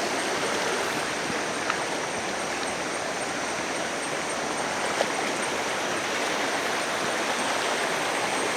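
Steady rush of a waterfall stream's flowing water, with two faint clicks, about a second and a half and five seconds in.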